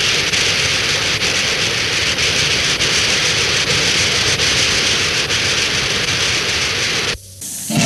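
Audience applauding steadily. It cuts off suddenly near the end, and an orchestra starts to play.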